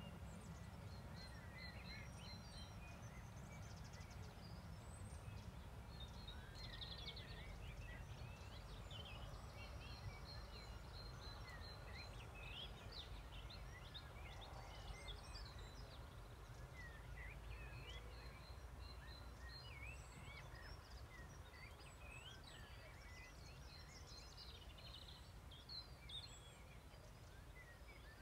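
Faint birdsong at dusk: many birds giving scattered short chirps and whistles, over a low rumble.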